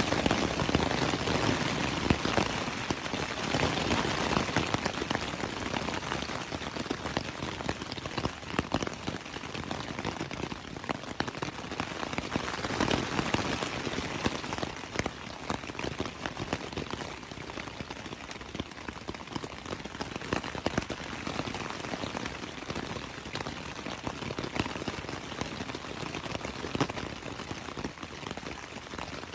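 Rain falling on a tent's fabric, heard from inside the tent: a dense patter of drops that is heavier in the first few seconds and again around the middle, and lightens toward the end.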